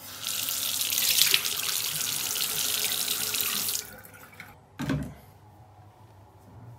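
A single-lever chrome tap runs water into a ceramic washbasin as a steady splashing hiss, then is shut off after about four seconds. About a second later comes one short thump.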